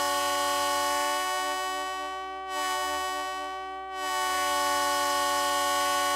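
Two Ibuki Type 75 air horns and a Chinese DF4B locomotive low-note horn sounding together as one loud, sustained chord. The blast breaks off briefly about two and a half seconds in and again near four seconds, then holds on.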